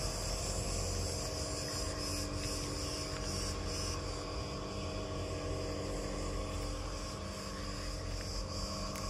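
Insects chirring steadily in a sunny vegetable garden, a constant high-pitched shimmer, over a steady low hum and a low rumble.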